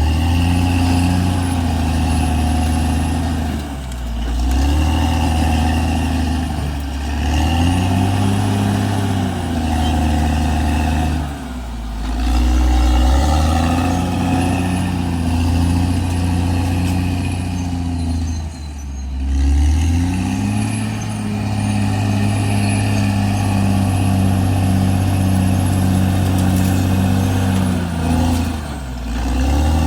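Caterpillar D6R XL bulldozer's diesel engine working, its pitch dipping and recovering every few seconds as it lugs under load, with a thin high whine over it.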